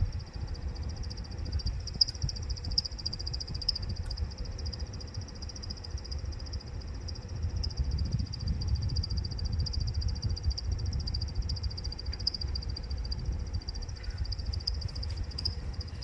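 Hitachi split air conditioner's indoor blower wheel running with an abnormal high-pitched, rapidly pulsing chirp like a bird or cricket, over a low fan rumble. The chirp is the blower-wheel fault noise.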